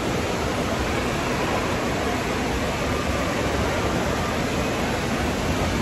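Steady, even rushing noise of running water in an indoor water park, with no distinct events.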